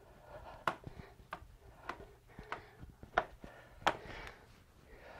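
Sneakers tapping on a hard floor in an even rhythm, about one tap every two-thirds of a second, from alternating-leg mountain climbers.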